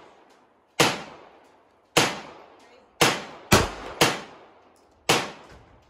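Semi-automatic pistol fired six times at an uneven pace, mostly about a second apart with two quicker follow-ups near the middle. Each shot has a short echoing tail.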